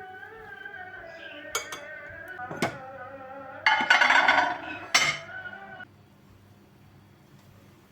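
Kitchenware clinking: sharp clinks of dishes and utensils about 1.5, 2.5 and 5 seconds in, over soft background music. In the middle a louder rushing noise lasts about two seconds. Music and noise stop about six seconds in, leaving a quiet stretch.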